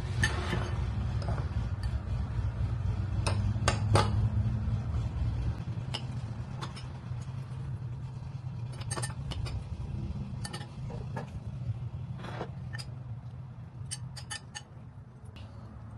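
Metal fork clinking and scraping against a glass bowl while eating, in scattered sharp clinks every second or two, over a steady low hum.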